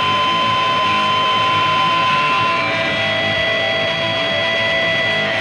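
Sustained electric guitar feedback and amp noise in a hardcore punk recording: steady held tones over a noisy wash, shifting to different pitches about two and a half seconds in.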